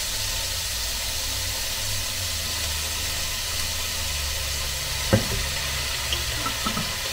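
Minced meat frying in a pan, giving a steady sizzling hiss, with a single knock about five seconds in.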